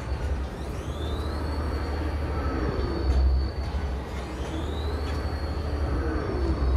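Technical Park Street Fighter pendulum ride in motion: a deep mechanical rumble swells with each swing of the arm, about every three and a half seconds. A high whine glides up and holds twice.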